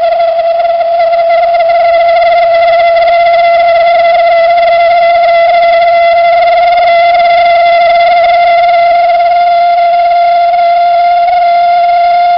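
Toyotomi Laser Burner kerosene heater's burner giving off a loud, steady steam-whistle-like hoot, one held pitch with overtones: the combustion resonance it makes when the burner is short of air.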